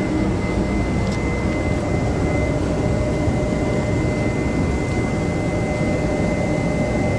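Steady low diesel drone with a thin, steady whine above it, typical of a diesel locomotive idling while its train stands at the platform.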